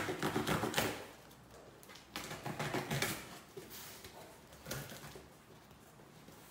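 Cardboard box being torn open by hand: the flap and packing tape ripping and rustling in two rough bursts of about a second each, the first at the start and the second about two seconds in, followed by a single light knock.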